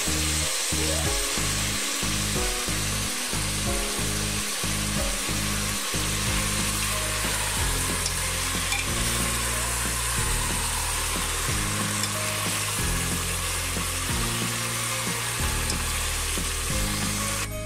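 Duck meat frying in spice paste in a pot, a steady sizzle, with a spatula stirring through the pieces; the raw meat is being lightly fried in the masala before the ground spices go in.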